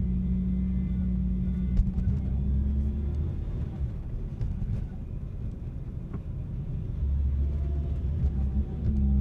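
A car engine running with a low steady drone that eases off about three seconds in and builds again around seven seconds, with a few faint clicks.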